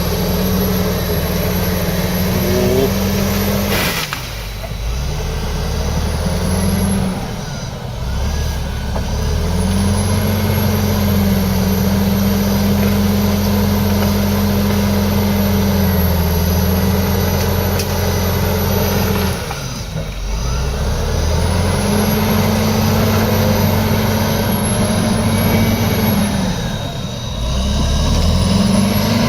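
Heavy earthmoving machine's diesel engine running under load. Its revs dip and recover about four times, around four, eight, twenty and twenty-seven seconds in, and a faint high whine rises and falls with the engine speed. There is a sharp knock about four seconds in.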